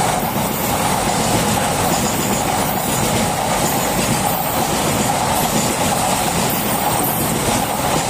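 Freight train of container wagons rolling past, a steady noise of steel wheels running on the rails. The brake van at the rear of the train comes by near the end.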